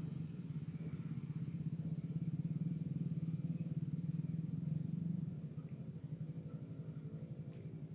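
A small engine running steadily with a fast, even pulse. It drops in loudness about five seconds in.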